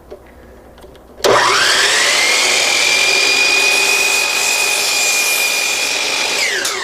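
Hercules miter saw's motor switched on about a second in, whining up to speed in under a second. It runs steady and high-pitched as the blade makes a straight cut through the edge of a board, then winds down with a falling whine near the end. No shop vac is running, and the saw is very quiet.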